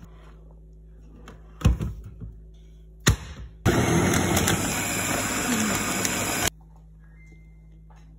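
Two knocks, then a small press-top food chopper's motor runs for about three seconds blending chocolate zucchini cake batter and stops abruptly.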